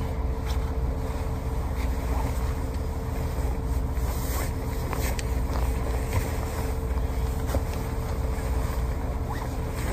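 Steady low rumble of a truck's engine and cabin noise, heard from inside the cab, with a faint steady hum and a few soft rustles and taps.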